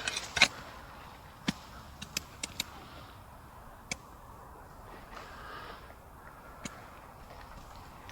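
Hand-digging potatoes in dry soil: a series of sharp knocks and clicks, the loudest about half a second in, then scattered single knocks over a faint hiss.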